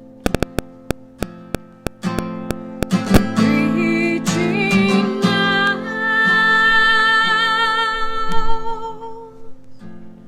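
Acoustic guitar music: crisp plucked or strummed notes in the first few seconds, then held notes with a wavering melody line from about four seconds in, fading away near the end.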